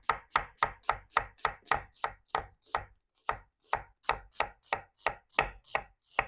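Vegetable knife thinly slicing a halved sweet onion on a cutting board: a steady run of quick knife strokes through the onion onto the board, about four a second, stopping near the end.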